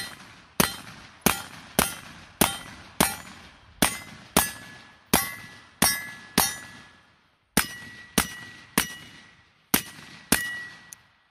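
Rapid string of suppressed AR-15 pistol shots, about one every half second with a brief pause around seven and a half seconds in. Many shots are followed by the ring of steel targets being hit.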